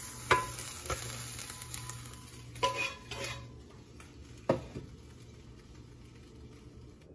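A fresh omelette is slid from a hot skillet onto a ceramic plate. A soft sizzle from the pan dies away about halfway through. Over it come a few sharp clinks of the skillet and spatula against the plate, some ringing briefly: the loudest about a third of a second in, a cluster around three seconds, and one more about four and a half seconds in.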